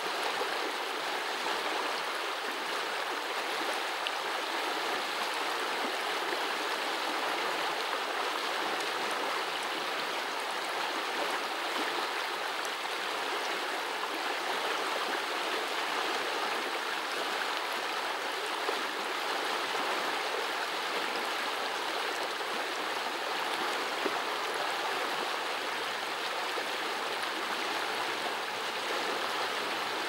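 Small stream babbling over rocks: a steady, even rush of flowing water.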